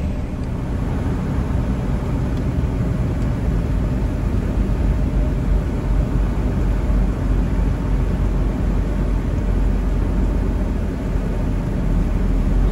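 Semi truck running with a steady low rumble.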